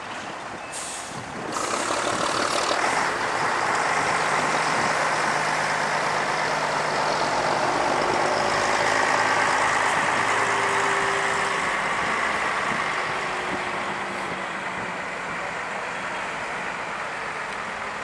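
Diesel coaches and buses driving slowly past one after another, a steady engine and road noise that swells as they pass close and eases off near the end. A short hiss of air about a second in.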